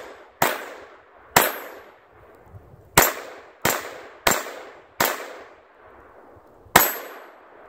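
Seven shots from a .22 pistol, irregularly spaced: two about a second apart, then after a pause four about two-thirds of a second apart, and one more near the end. Some shots are followed by a short, high metallic ring from a struck steel target.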